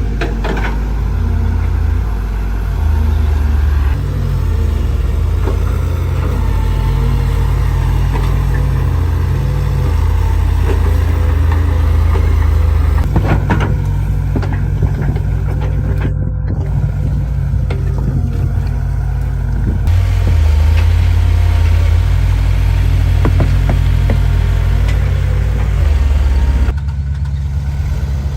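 Excavator diesel engines running while the machines work. The sound is mostly low and steady, shifting in pitch every second or two.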